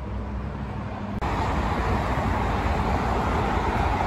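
Car driving on a city road: steady low rumble of engine and road noise. About a second in it switches abruptly to a louder, hissier road and traffic noise.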